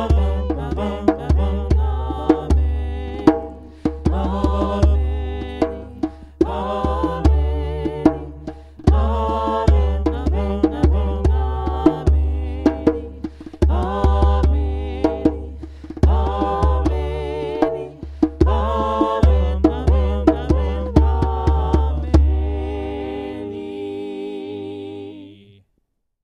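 Closing music: pitched chords with frequent sharp, struck attacks over a deep bass, ending on a held chord that fades out near the end.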